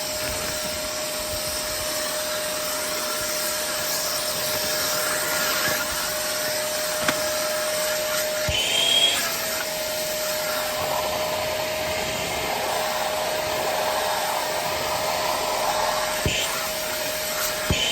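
Vacuum cleaner running steadily with its attachment being worked over a stroller, its motor holding one whining tone that wavers briefly twice as the suction changes, with a few small knocks of the nozzle.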